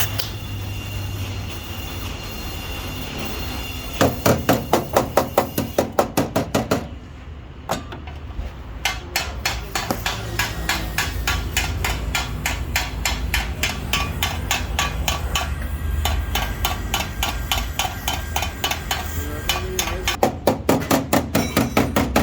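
Hammer striking metal in quick, even runs of about four to five blows a second, with short breaks between runs, over a steady low background hum.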